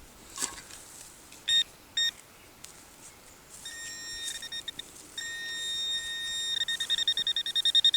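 Metal detector pinpointer beeping as it locates a shallow target in the dug soil: two short high beeps, then from about four seconds a continuous tone that turns into quick pulses near the end as it closes in.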